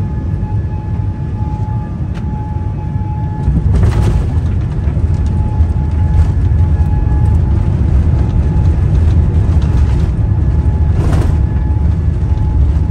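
Airbus A350 cabin noise on the runway: a loud, steady rumble of the engines and the wheels rolling over the runway, with rattling from the cabin, getting louder about three and a half seconds in.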